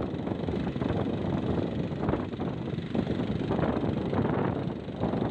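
Small gasoline-engine water pump running steadily, with hose water spraying onto the tractor's tiller; a dense, fluttering rush.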